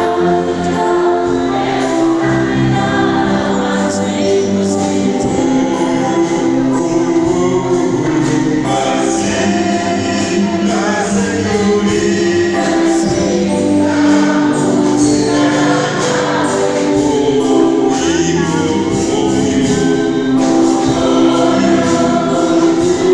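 Church congregation singing a praise song together, with hands clapping along in time.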